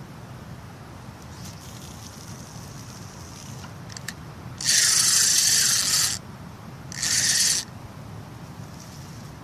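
Spinning fishing reel being wound in two quick spells, a loud whirring of the reel's gears and rotor: the first about halfway through, lasting over a second, and a shorter one just after.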